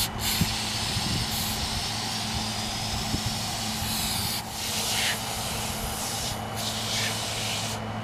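Aerosol can of foaming wheel cleaner spraying onto an alloy wheel. It is one long, steady hiss, which dips briefly about four and a half seconds in and then goes on in shorter spurts.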